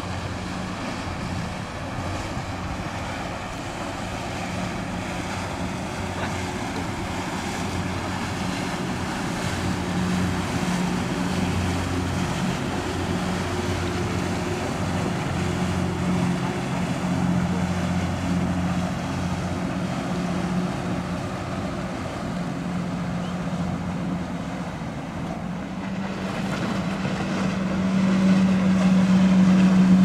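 Motorboat engine droning steadily over a haze of wind and water noise, growing louder over the last few seconds as a boat comes closer.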